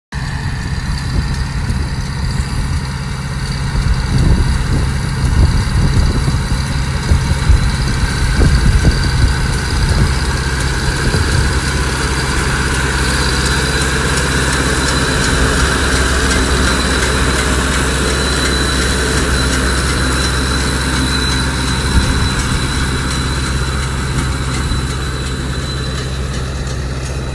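Tractor engine running steadily with a Vermeer 504c round baler working behind it, with a louder, irregular clatter from about 4 to 11 seconds in.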